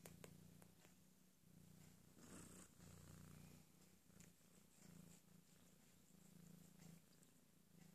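Domestic cat purring softly close up, the purr rising and falling with each breath. There are a few faint clicks and a brief noise about two seconds in.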